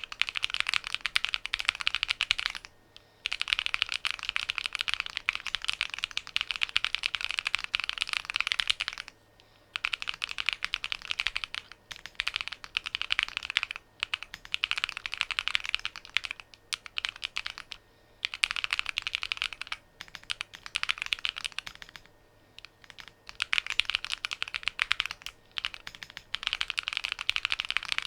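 Fast continuous typing on a hand-built Alice-layout mechanical keyboard: a dense rattle of key clicks in long runs, with short pauses about three seconds in, around nine to ten seconds and around twenty-two seconds.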